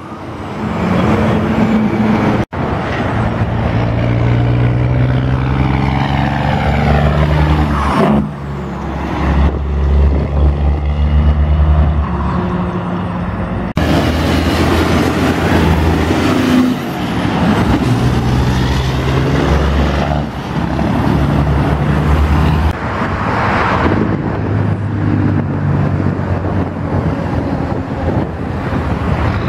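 Heavy diesel trucks' engine compression brakes (Jake brakes) barking in a loud, steady low drone as the trucks slow and pass by, their pitch sweeping as they go. Several separate pass-bys are cut together, with abrupt changes about 2, 8, 14 and 23 seconds in.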